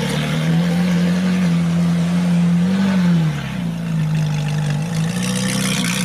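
Ferrari sports car's engine running steadily, with a brief rise and fall in pitch about three seconds in.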